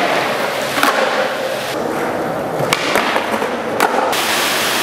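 Skateboard grinding along a concrete ledge and rolling on a concrete floor, with several sharp clacks of the board; the last, near the end, is the board landing off the ledge.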